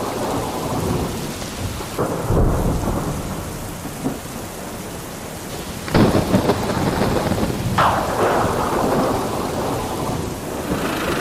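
Thunderstorm: steady rain with rumbling thunder claps breaking in suddenly about two, six and eight seconds in, each fading away.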